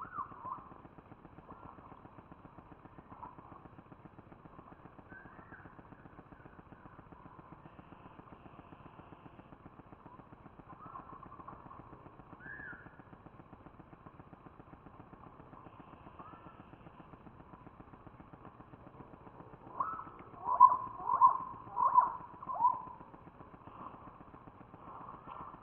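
A bird calling: a run of about five short, loud calls about twenty seconds in, over faint steady hiss and a few soft scattered sounds.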